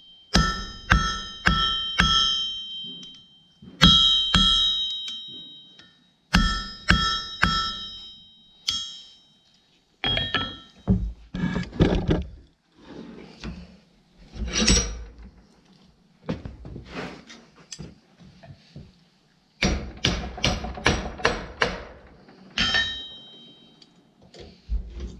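Hand hammer striking a hot steel rod on an anvil, flattening a short section of its end, with the anvil ringing after the blows. The blows come in runs of about two a second with short pauses, duller strikes in the middle, and a quicker run near the end.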